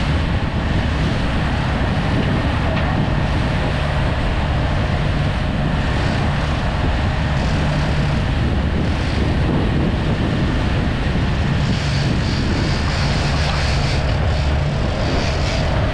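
Boat engine running steadily while trolling offshore, a continuous low drone under an even rushing hiss.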